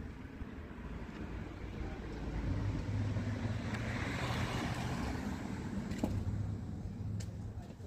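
A motor vehicle passing by: a low engine hum with road noise that swells to a peak about four seconds in and then fades.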